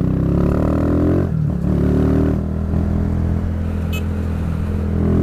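Honda CG Fan 150 single-cylinder four-stroke motorcycle engine pulling under way. Its pitch climbs, dips briefly about a second in, climbs again, then holds steady. A single sharp click sounds near the end.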